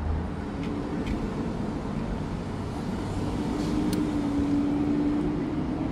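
Steady low rumble of an engine or motor in the background. A droning hum comes in about three seconds in and rises slightly in pitch, with a few faint ticks over it.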